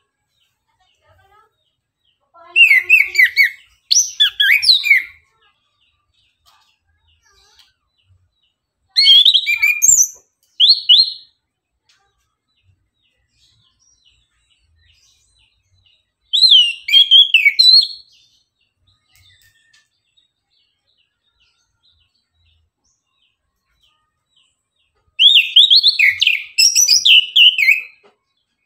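Chestnut-capped thrush (anis kembang) singing in four short bursts of quick, varied high notes, separated by several seconds of silence.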